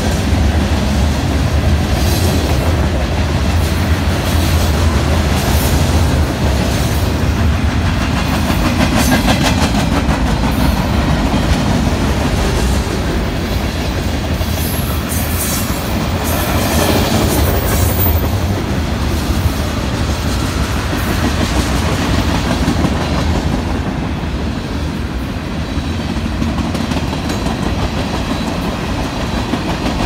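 Freight train of covered hoppers and tank cars rolling past with a steady rumble. Steel wheels clack over the rail joints, in denser runs of clicks about halfway through.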